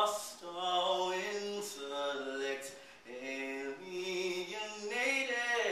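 A solo male voice singing a slow song, holding long notes and sliding between pitches, with short breaths between phrases.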